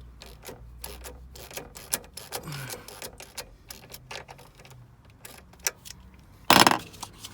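Scattered small metal clicks and taps from hand tools and cable fittings while an earth strap is being connected, with one louder, short rattling clatter about six and a half seconds in.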